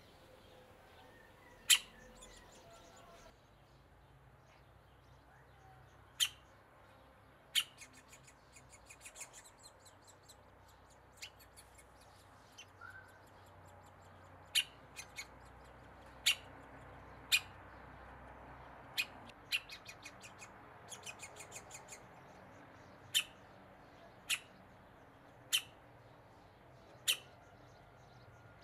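Middle spotted woodpecker nestling calling from its tree-hole nest: single short, sharp calls every second or few, the loudest about two seconds in, with two brief runs of quick high notes in between.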